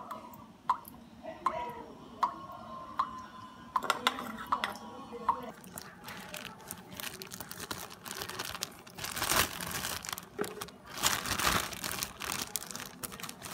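Water dripping into a glass bowl of soaking strawberries, a steady series of single plinks about one every three-quarters of a second. Then a thin plastic bag crinkles and rustles as it is twisted and tied, louder in two bursts near the end.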